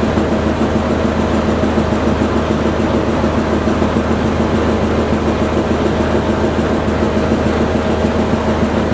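KTM diesel locomotive idling at close range: a loud, steady engine drone with a constant low hum.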